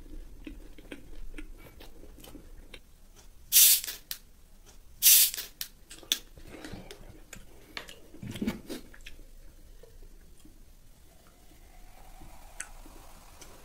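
Chewing, then a plastic Coca-Cola bottle twisted open with two loud, short hisses of escaping gas about a second and a half apart. Near the end, cola is poured into a glass mug, a faint, slightly rising pouring sound.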